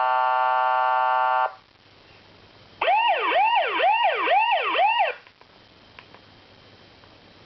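Police horn and siren ringtones played from a phone app: first a steady horn blast of about two seconds, then after a short gap a fast up-and-down siren sweeping about twice a second for a couple of seconds.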